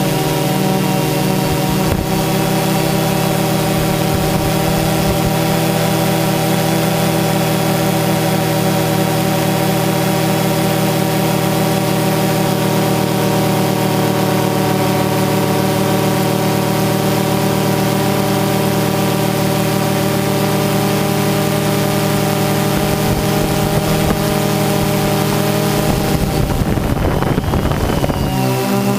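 DJI Phantom 2 quadcopter's electric motors and propellers whining steadily, heard close up through the GoPro carried on the drone. Near the end the pitch wavers and shifts as the motors change speed.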